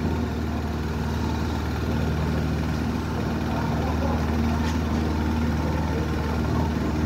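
Heavy diesel machinery running steadily as an excavator clears leftover laterite soil out of a dump truck's bed.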